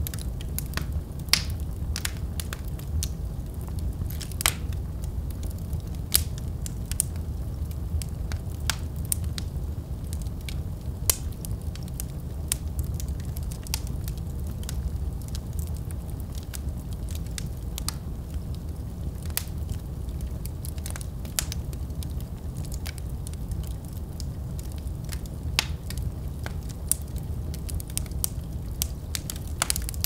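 Wood fire burning in a fireplace: irregular sharp crackles and pops from the burning logs over a steady low rumble of the flames.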